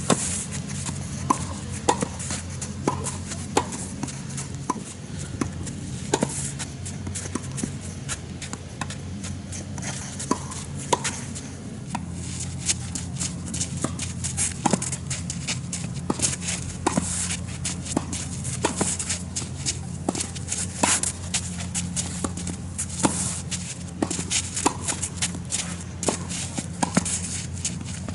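Tennis balls being struck with a racket and bouncing on the court in a groundstroke drill: sharp pops every second or two, over a steady low hum, with shuffling footsteps on the court.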